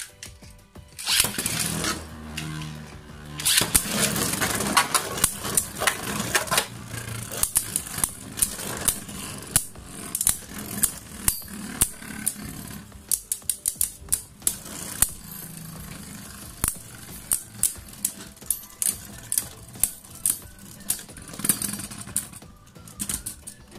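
Two Beyblade Burst spinning tops, one of them Glide Ragnaruk, are launched into a plastic stadium about a second in with a loud rasp. They then spin and clash in many sharp plastic-and-metal clacks, a few per second and unevenly spaced.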